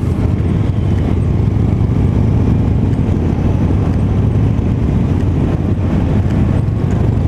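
Steady engine and road noise from a moving Vespa scooter, mixed with the motorcycles riding close behind it.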